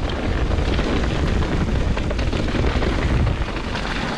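Commencal Meta SX mountain bike rolling fast down a dirt trail: a steady, loud rumble of tyres on dirt with the clatter of the bike over roots and rocks.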